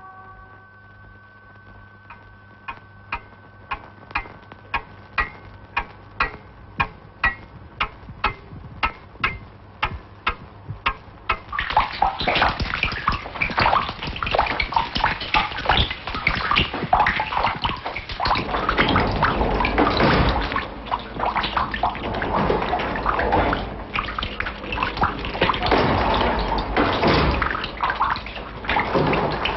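Water dripping in sharp, evenly spaced drops, about two a second and coming faster. A little before halfway through it gives way to heavy, continuous pouring and splashing water.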